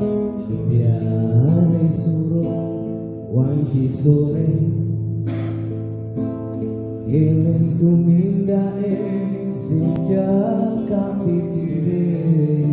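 Acoustic guitar strumming chords under a low voice singing a slow devotional melody.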